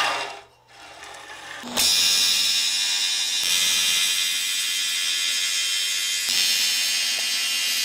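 AC TIG welding arc buzzing steadily while fusing aluminium square tube, with filler rod fed by hand. It starts suddenly about two seconds in.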